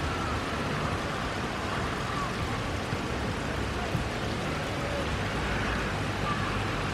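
Steady rain falling and splashing on wet pavement, puddles and grass.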